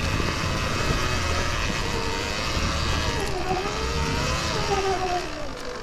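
Sur-Ron Ultra Bee electric dirt bike's motor whining while ridden, its pitch dipping, rising again and falling as the speed changes, over a low rumble.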